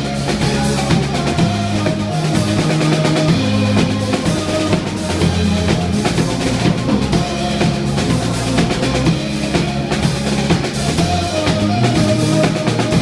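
Live band playing an instrumental passage, driven by drum kit with bass drum and snare, over bass and other instruments, with no singing.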